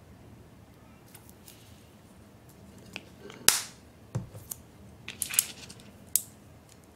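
Plastic clicks and taps from a squeeze bottle of chocolate syrup being capped and set down on the table. The loudest, sharpest click comes about halfway, followed by a dull knock, a quick cluster of clicks a second later, and one last click near the end.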